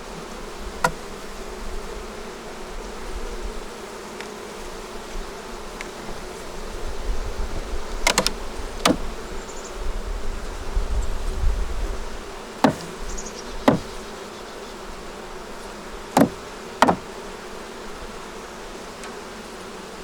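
Honey bees buzzing steadily around an open hive, with several sharp knocks, some in pairs, and a low rumble in the middle.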